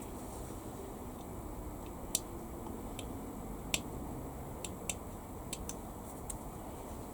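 Scattered light clicks and taps of small plastic model-kit parts and hobby tools being handled, about eight at irregular intervals, over a steady low background hum.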